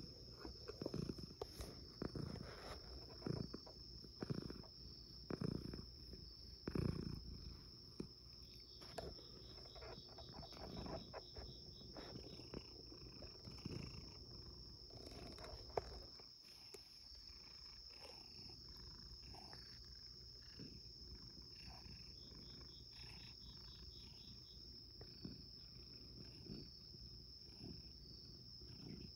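Domestic cat purring close to the microphone in soft pulses about once a second, strongest for the first several seconds and then fainter.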